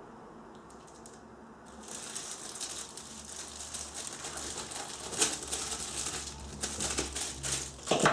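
Plastic wrapping crinkling and rustling as tools are unwrapped and handled, starting about two seconds in, with scattered sharp clicks and knocks, the loudest near the end.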